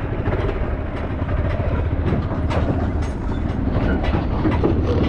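Motorcycle engine running steadily while being ridden, with frequent short knocks and rattles, typical of a bike going over a rough road.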